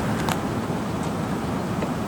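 Steady rushing noise of rain and running water, with a couple of sharp ticks of drops landing in the first half-second.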